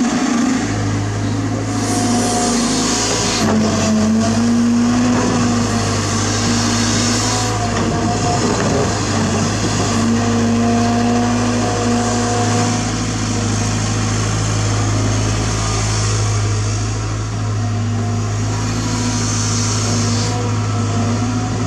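CAT 320GC excavator digging: its diesel engine runs steadily under load, with a whine that comes and goes as the hydraulics work the arm and bucket, and several stretches of hiss.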